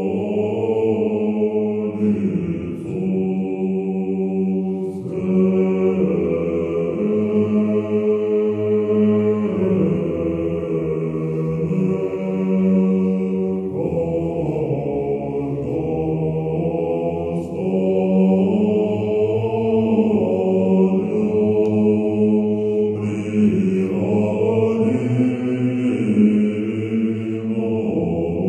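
Background music: slow chant-like singing on long held notes that change every few seconds.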